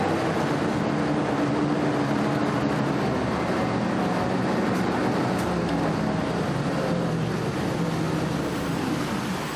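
Army Duck (DUKW amphibious truck) engine running steadily as the vehicle drives, heard from on board, its note wavering a little and easing slightly near the end.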